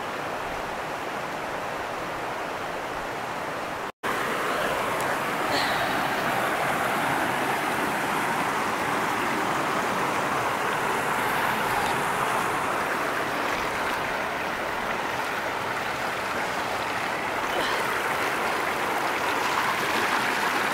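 Shallow stream water rushing over rocks, a steady noise that cuts out briefly about four seconds in and comes back louder.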